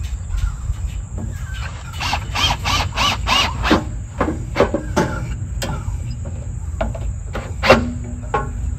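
Cordless drill driving screws to fasten a metal electrical panel box to a wooden post: a run of short squeals and several sharp clicks, with a brief whir of the drill motor near the end.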